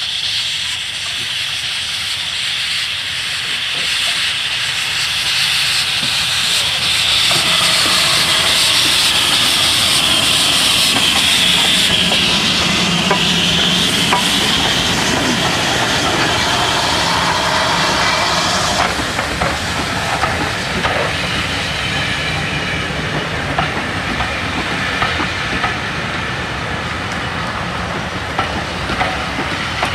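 A Great Western steam locomotive and its train passing close by. Steam hisses loudly as the engine draws level, loudest about a third of the way in. The coaches then roll past with wheels clicking over rail joints through the second half.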